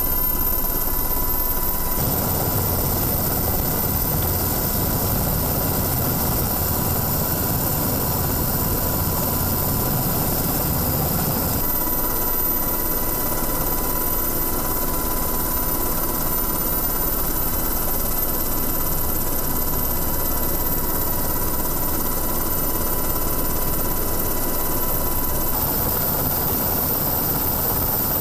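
UH-60 Black Hawk helicopter heard from on board: a steady rotor and turbine drone with a thin, steady high whine. The mix changes abruptly a few times, about two, twelve and twenty-six seconds in.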